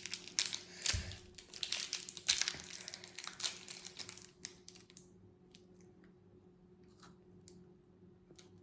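Plastic candy-bar wrapper of a Kit Kat being crinkled and torn open for about four seconds, then a few faint ticks.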